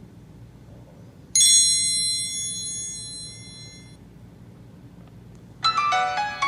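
Nokia E90 phone's loudspeaker playing its built-in tones: a single bell-like alert chime about a second in that rings for a couple of seconds and fades. Near the end a piano-like ringtone melody starts.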